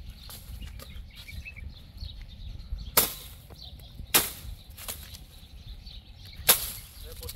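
A long-handled hooked blade chopping into date palm fronds. There are three sharp chops, the first about three seconds in and the last near the end, with a lighter one between.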